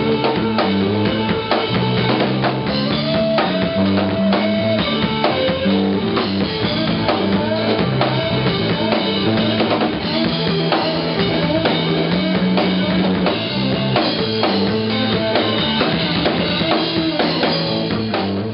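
Live rock band playing: electric guitar over a drum kit with steady bass drum and snare hits.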